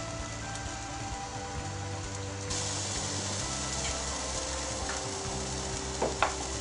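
Banana-and-egg pancake batter frying in coconut oil in a pan: a steady sizzle that turns louder and hissier about two and a half seconds in.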